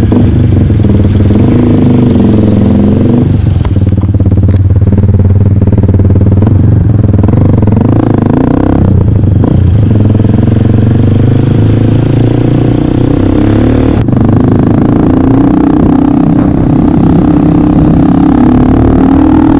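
Dirt bike engine running under way, heard from the rider's position. Its pitch falls and picks up again about halfway through, as between gears, then climbs steadily near the end as the bike accelerates.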